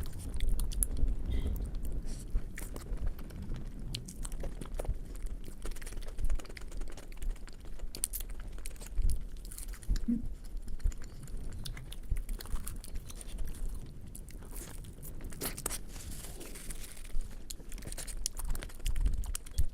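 Close-miked eating sounds: a person biting and chewing puri with potato curry, with frequent small clicks and smacks.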